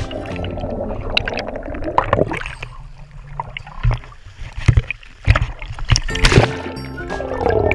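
Pool water sloshing and splashing right against a GoPro camera as it dips under and comes back up, with several sharp splashes, the loudest about six seconds in. Background music plays under it.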